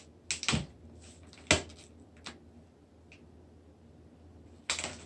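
A few irregular sharp clicks and knocks, the loudest about a second and a half in, with a quick cluster of them near the end.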